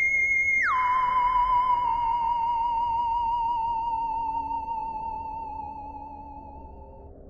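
Background music: a single wavering electronic tone, theremin-like, slides down from a high note to one about an octave lower. It holds there, slowly fading, and stops just before the end.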